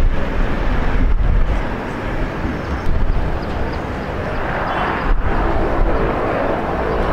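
Distant jet engines of an Ilyushin Il-76TD (four Soloviev D-30KP turbofans) running, a steady low rumble with a faint whine over it in the middle.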